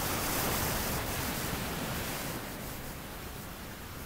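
Ocean surf: waves breaking and washing up the shore in a full, even hiss of foam. The wash swells during the first second and eases off after about two and a half seconds.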